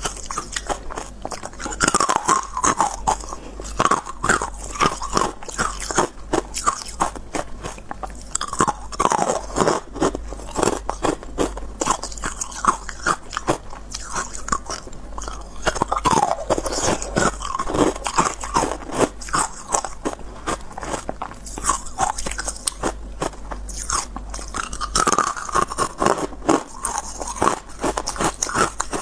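Close-miked biting and chewing of white carbonated ice, a dense, rapid run of crisp cracks and crunches.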